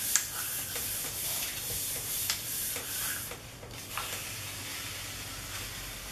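Hands rubbing a sheet of paper down onto a paint-covered gel printing plate, a soft steady rustle with a few light ticks, then the paper being peeled off the plate's tacky surface about four seconds in.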